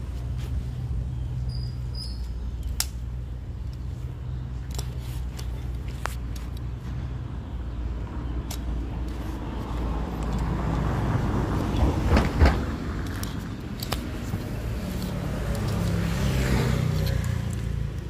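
Steady low rumble with scattered clicks and rustling as the phone is handled close against clothing, the rustling swelling twice and loudest about twelve seconds in.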